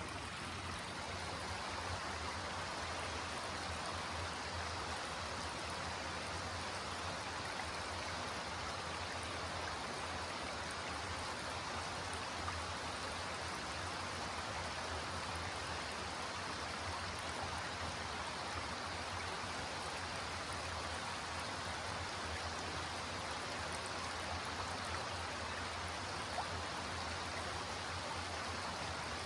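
Shallow creek flowing and rippling over flat rock ledges: a steady, even rush of water.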